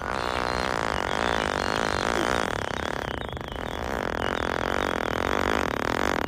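A motor vehicle's engine running steadily, with no break.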